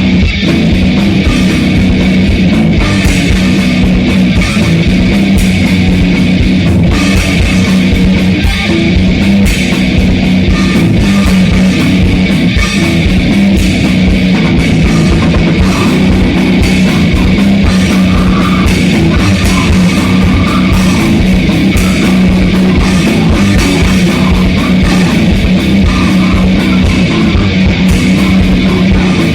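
Grindcore band playing at full volume in a rehearsal recording: distorted electric guitars, bass and fast, dense drumming.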